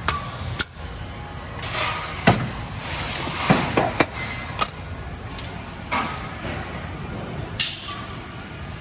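Industrial thermoforming machine running through its cycle: a steady machine hum broken by a sharp clunk every second or two and several short bursts of hissing.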